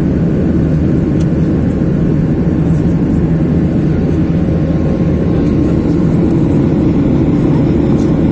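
Steady cabin noise of an airliner in its climb after takeoff: engines and airflow make an even low rumble, with faint constant tones above it.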